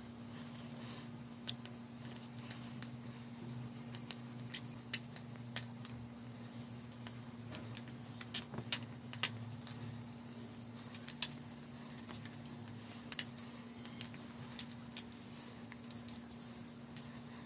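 Scattered light metallic clicks and clinks from a stainless steel sev press being worked over a glass bowl of ice water, most frequent in the middle stretch, over a steady faint hum.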